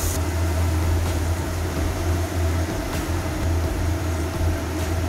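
Steady low mechanical hum, like a motor or fan running.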